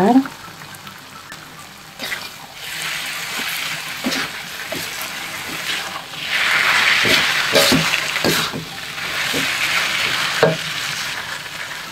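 Vegetables sizzling in a hot wok as a metal spatula tosses and scrapes them, with short knocks of the spatula against the pan. Quiet for about the first two seconds, then the sizzling builds and is loudest past the middle.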